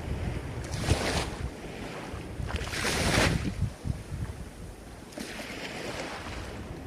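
Ocean waves breaking and washing ashore, with surges about a second, three seconds and five seconds in, the one near three seconds the loudest, over a low wind rumble on the microphone.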